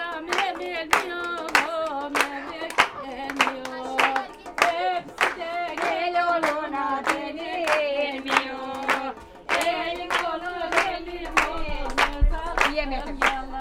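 Voices singing a folk tune in unison with a wavering, ornamented melody, accompanied by steady rhythmic hand clapping.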